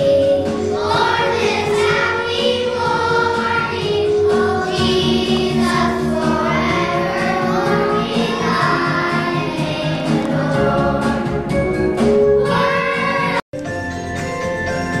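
Children's choir singing a Christmas carol together over musical accompaniment. Near the end the sound cuts out for an instant and only instrumental music follows.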